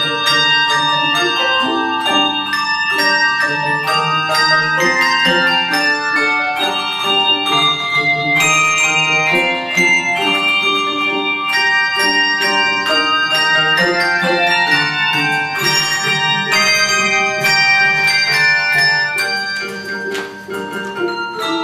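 Handbell choir ringing a hymn arrangement: many tuned handbells struck in chords and melody lines, their tones ringing on over one another. It gets a little quieter near the end.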